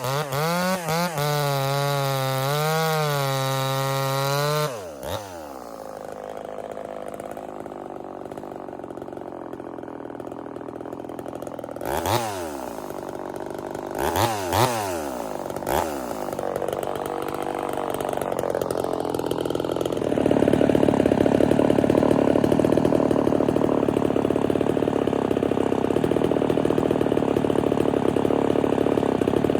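Ported Homelite VI-130 two-stroke chainsaw running at full throttle in the cut, its pitch wavering under load, then dropping to idle about five seconds in. It is revved briefly a few times around the middle, and idles louder and rougher for the last third.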